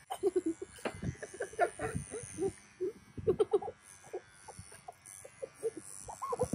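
Chickens clucking: a run of short calls, with a few low knocks among them.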